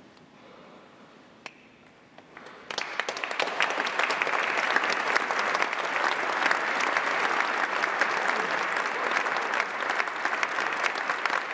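Audience applause in a cathedral, starting about two and a half seconds in after a near-quiet pause, swelling quickly into dense, sustained clapping.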